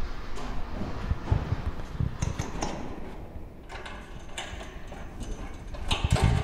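Irregular metallic clicks and knocks as the vacuum hose and its fitting are handled at the lid of a stainless steel vacuum tumbler drum, with a cluster of heavier knocks near the end.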